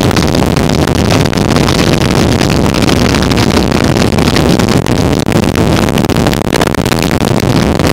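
Steady rumble of a motorcycle cruising at highway speed, mixed with wind buffeting the camera microphone.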